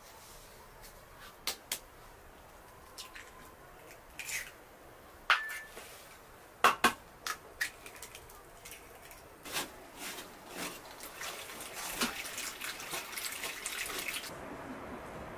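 Eggs knocked and cracked on the rim of a metal basin of flour, a handful of sharp knocks, the loudest about five and seven seconds in. Then hands work the egg into the flour, a quick run of soft scraping strokes.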